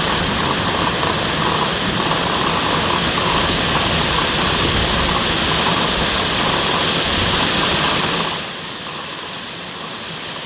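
Steady heavy rain falling, a dense even hiss with a low rumble. About eight seconds in it turns quieter and thinner as the low rumble drops away.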